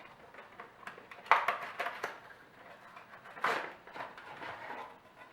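Packaging being handled in an unboxing box: irregular rustling with a few knocks and clunks, the sharpest about a second in, and a rustling swish about halfway through.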